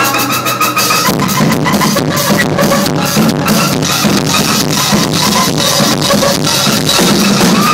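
Loud electronic cumbia played live, with a steady drum beat; the bass grows heavier about a second in.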